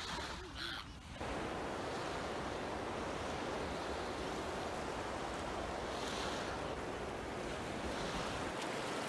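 Ocean surf: a steady wash of waves that sets in about a second in.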